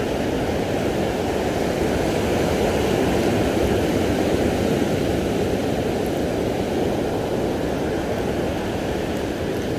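Steady low roar of ocean surf on a beach, mixed with wind rumbling on the phone's microphone; it swells slightly a few seconds in.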